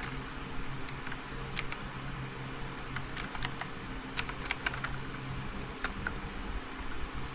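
Keys being typed on a mechanical keyboard: scattered, irregular keystroke clicks, a quick run of them in the middle, over a low steady hum.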